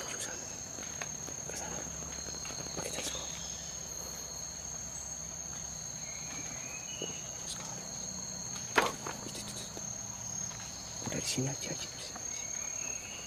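Forest insects droning steadily in two high tones throughout. About two-thirds of the way through comes one sharp pop, the loudest sound, from an air rifle being fired up into the canopy, with a few light handling knocks after it.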